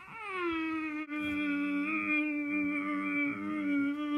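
A voice humming one long note that slides down at the start, breaks off briefly about a second in, then holds steady.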